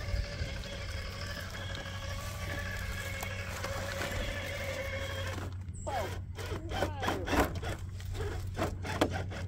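Traxxas TRX4 K10 RC crawler's motor and geartrain whining steadily as it crawls over rocks, then, about five and a half seconds in, revving in quick rising and falling bursts with short knocks and scrapes of the tires on stone as it climbs a steep boulder.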